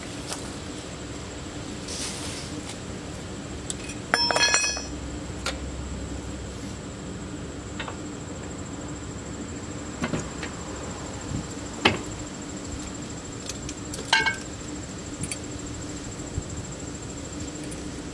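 A few scattered metallic clinks and knocks of hand tools against metal. The loudest comes about four seconds in with a short bright ring, and a few sharper knocks follow later, one of them ringing briefly.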